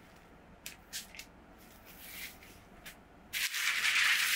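A few faint rustles of dough and baking paper being handled. Then, about three seconds in, a much louder, steady crinkly rustling of baking paper starts suddenly.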